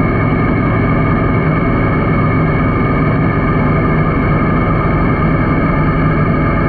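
Yamaha Niken's 847 cc three-cylinder engine running steadily while cruising in fifth gear.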